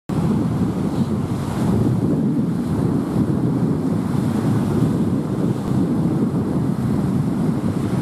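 Small sea waves breaking and washing up a sandy beach, a steady surf noise mixed with wind rumbling on the microphone.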